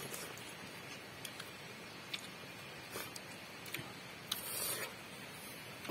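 Quiet eating sounds: scattered faint clicks and crunches of chewing, with a short rustle a little past four seconds in.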